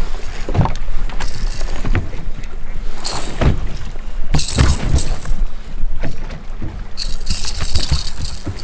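Wind buffeting the microphone on an open fishing boat. Over it come several knocks and thumps from a walleye and landing net being handled on the boat deck, and a burst of rustling near the end.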